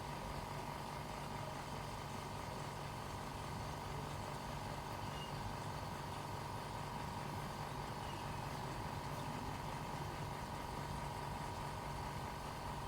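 A steady machine hum with a constant low drone and a fainter high tone, unchanging throughout.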